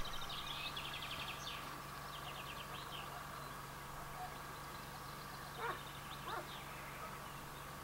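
Faint outdoor evening ambience: rapid high chirping trills during the first three seconds, then two short distant dog barks less than a second apart just past the middle, over a steady faint hum.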